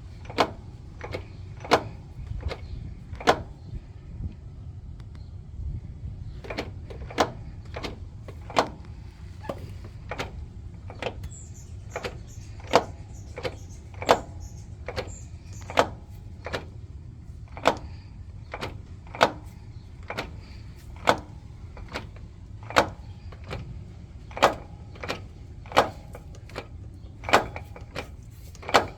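Toyota Sienna minivan knocking: sharp, irregular knocks about once a second over the steady low rumble of the running van. The owner takes it for a transmission knock and is unsure whether it is normal.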